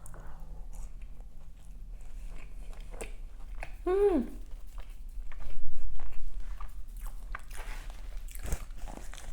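Close-miked eating: a person biting and chewing crunchy fried pastry, with many small wet mouth clicks and a louder crunching stretch just past the middle. About four seconds in there is a short hummed 'mm' of enjoyment that rises and falls.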